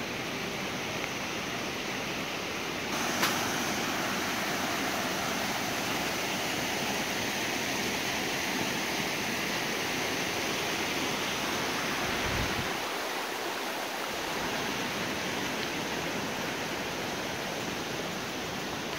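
Steady rushing of a waterfall, louder from about three seconds in, where there is a short click.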